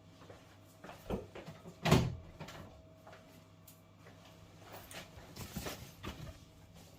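A few scattered knocks and clicks of handling, like a panel or cover being moved, with one louder thump about two seconds in.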